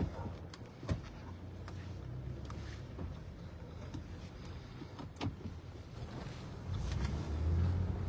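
Car running while being parked, heard from inside the cabin: a low hum that swells near the end, with a few sharp clicks.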